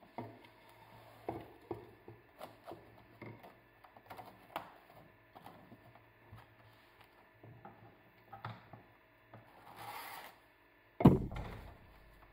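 Plastic cling film crinkling and crackling in small irregular clicks as it is stretched and pressed over a glass baking dish, with a brief rustle near ten seconds. About eleven seconds in, one loud thump as the glass dish is moved against the table.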